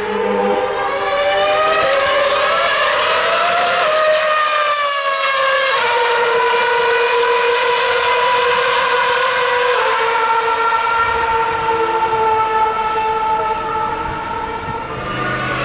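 Formula One car's 2.4-litre V8 engine running, a high-pitched note that climbs over the first few seconds, drops about six seconds in, then holds a steady pitch.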